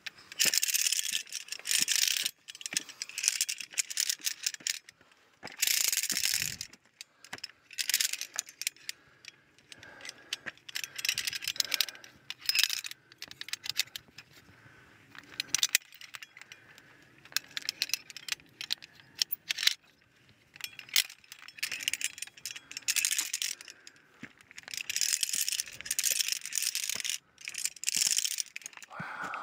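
Metal climbing gear jangling and clinking in irregular bursts: via ferrata carabiners on a sling clipping onto and sliding along a fixed steel chain.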